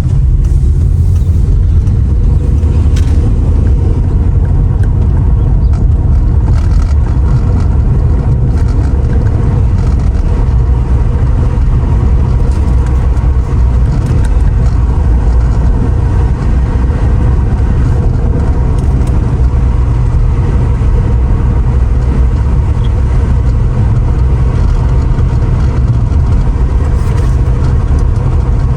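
Mercedes R129 SL500's V8 cruising at a steady speed: a constant low rumble of engine, tyre and wind noise, with no marked rise or fall.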